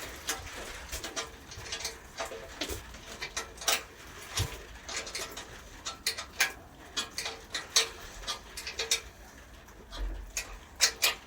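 Irregular light metallic clicks and clinks of a spanner turning a bolt on a wood chipper's frame during assembly.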